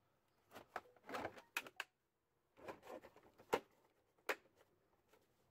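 Hard plastic torque wrench cases being shut and handled: a scatter of light clicks and knocks in two clusters, then one more click.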